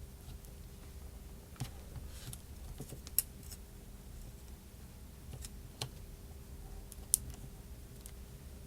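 Scattered small clicks and taps of tools and small parts being handled during an iPhone 4s repair, with two sharper clicks about three and seven seconds in, over a faint steady hum.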